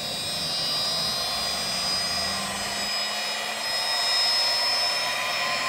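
1.5 kW high-speed CNC router spindle on a variable-frequency drive, spinning up with a steady whine. A tone in it rises slowly in pitch as the drive ramps the frequency toward 400 Hz (24,000 rpm).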